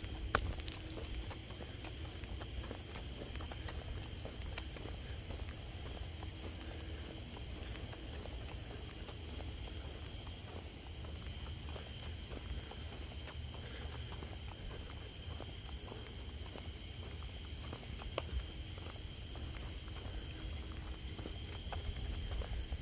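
Summer night insects chirring steadily in a high, continuous drone over a low steady rumble, with a few faint clicks.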